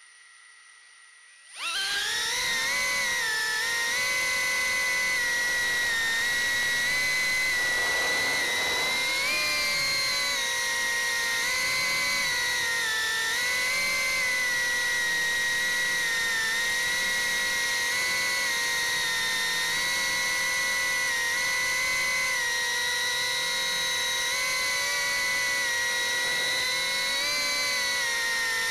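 Beta75X 2S tiny whoop drone's four 11,000 KV brushless motors with 40 mm four-blade props, heard through the drone's own onboard camera microphone. About a second and a half in they spool up from near silence to a steady high whine, which rises and dips slightly in pitch with the throttle as it flies.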